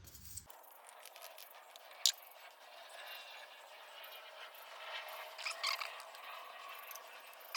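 A few faint clicks and light knocks of small engine parts being handled, over a low steady hiss: one about two seconds in, a short cluster of them past the middle, and another at the end.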